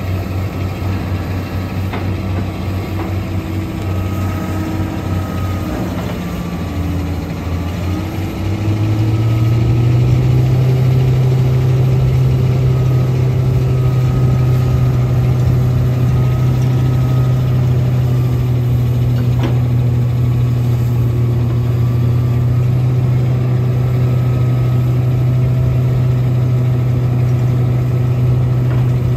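Komatsu PC600LC-8 excavator's six-cylinder diesel engine running at a low speed, then revving up about nine seconds in and holding steady at the higher speed.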